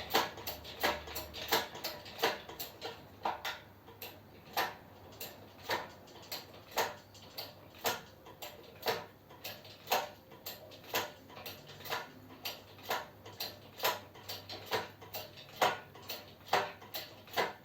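Lifting hoist's ratchet clicking in a long, slightly uneven run of sharp clicks, about two a second, as the engine block is worked on the screw-in lifting eye.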